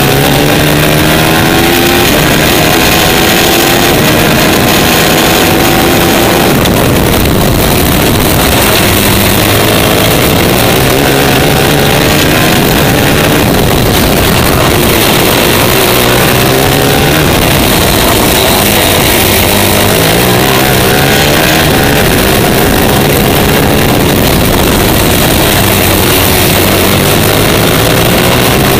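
Superkart's TM 450 four-stroke single-cylinder engine at racing speed, heard on board; its pitch climbs again and again under acceleration and drops back for the corners.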